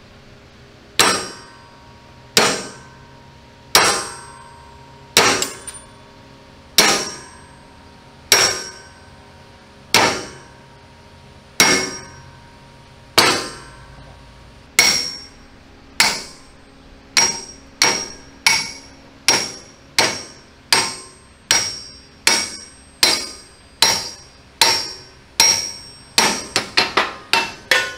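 Ball-peen hammers striking steel, each blow a sharp metallic clang with a brief ring, as seized pins are driven out of a tank's steel vision-block mechanism clamped in a vise. The blows come about every one and a half seconds, then quicker from about halfway through, ending in a rapid flurry of lighter strikes.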